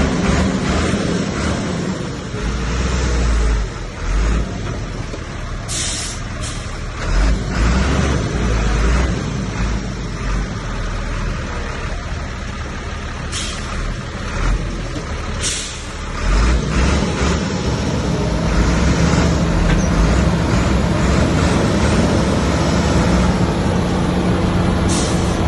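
Heavy diesel earthmoving machinery running at work, with a deep rumble broken by several short, sharp hissing or clanking bursts. About two-thirds of the way through, the engine settles into a steadier, slightly louder drone.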